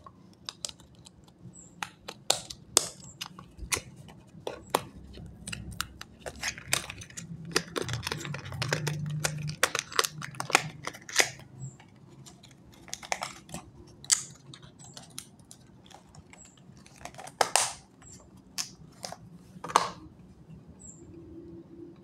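Irregular clicking and tapping of laptop keys and touchpad buttons, scattered single clicks with a few quick runs, over a faint low hum.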